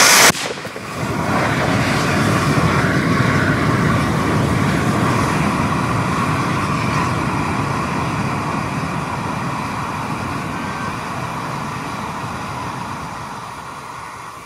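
Potassium nitrate and dextrose solid rocket motor burning on a static test stand. A sharp hiss cuts off abruptly about a third of a second in, then a steady rushing burn builds over a few seconds and slowly fades. The motor is failing: its plaster nozzle has blown out and the paper casing burns through the side.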